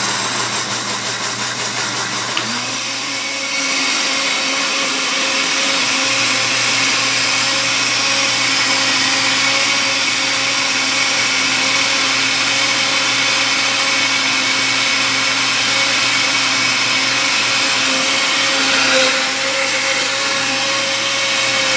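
Electric countertop blender running, blending a thin liquid batter of eggs, oil, sugar and lemon juice. About three seconds in, its motor climbs in pitch and gets louder, then runs steadily until it is switched off near the end.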